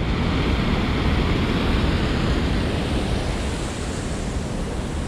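River water pouring over a weir, a steady rushing that eases slightly toward the end.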